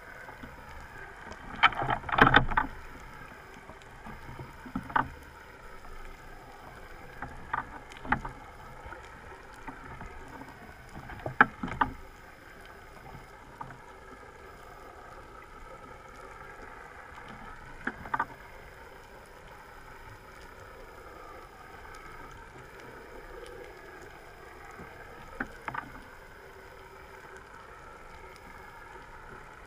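Underwater sound of a boat engine's steady drone, its pitch slowly wavering, with scattered sharp clicks and knocks and a louder crackling burst about two seconds in.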